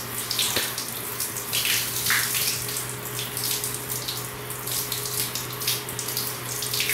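Water spraying from a handheld shower head held against a Siberian Husky's wet neck fur, splashing and running off onto the tiled floor in an uneven hiss. A steady low hum runs underneath.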